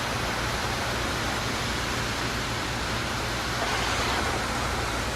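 Heavy rain pouring down, a steady even hiss of downpour on the roof and ground.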